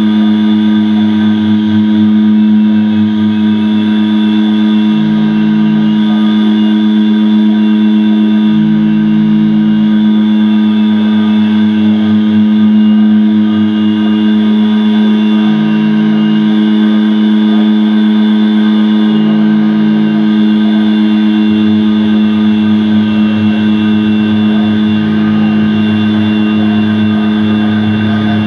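Live electronic drone music: a loud, steady low tone held on one pitch throughout, with a deeper tone and a high, thin tone cutting in and out in blocks every few seconds.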